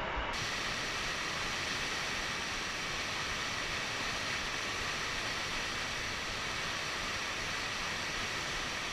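Whitewater of a big river rapid rushing steadily, the water pouring over rock right at the microphone.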